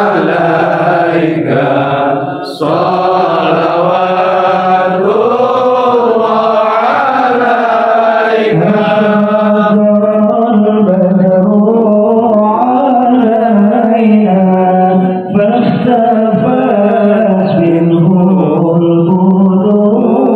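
Sholawat, Arabic devotional chanting in praise of the Prophet Muhammad, sung as one long, winding melodic line with sustained held notes.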